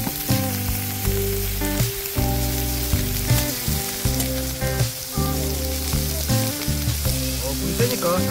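Pork neck slices sizzling as they are laid on a hot round griddle plate: a steady, dense frying hiss, with background music underneath.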